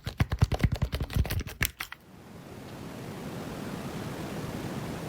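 Rapid close-up clicking and tapping for about two seconds. Then a steady pink-noise-like hiss fades in over about a second and holds: the therapy noise being switched back on.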